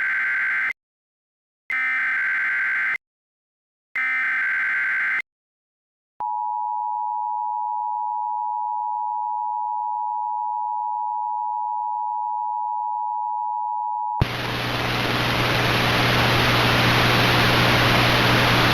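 Emergency Alert System SAME header: three short bursts of digital data tones, about a second apart. Then the two-tone EAS attention signal starts, held steady for about eight seconds. It cuts off into a loud hiss of static with a low hum that grows louder toward the end.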